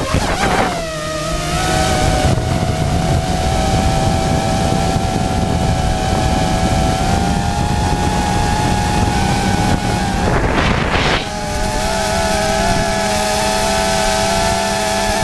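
Quadcopter drone's propellers and motors whining steadily as it climbs and flies, with wind noise on the microphone. A short gust of wind noise about ten and a half seconds in, after which the motor pitch settles slightly differently.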